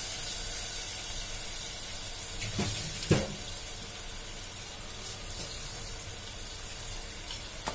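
Onion and spice masala sizzling gently in an open aluminium pressure cooker on a gas flame, its water nearly cooked off: a steady hiss. Two soft knocks come about two and a half and three seconds in.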